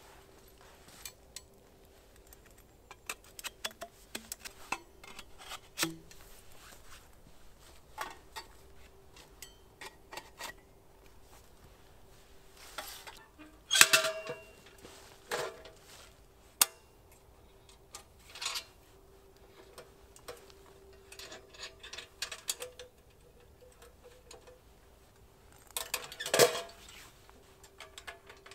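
Metal clinks, clicks and knocks of a folding Gstove wood stove being set up: its steel legs, rails and parts handled and fitted. The knocks come irregularly, with two louder clanks about halfway through and again near the end.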